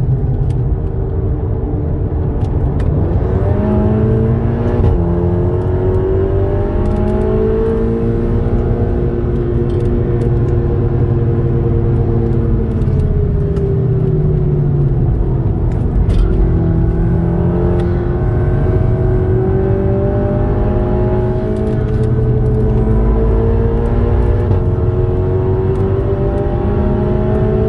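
Volkswagen Golf R's turbocharged four-cylinder engine driven hard on a sprint lap, heard inside the cabin: its pitch jumps around several times about four seconds in, falls away for a corner near the middle, then climbs slowly again, over steady tyre and road rumble.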